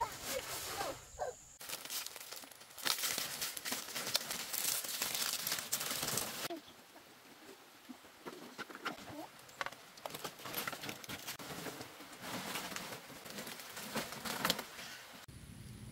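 Dry palm fronds rustling and crackling as they are handled and laid over a bamboo roof frame, in several louder and quieter stretches.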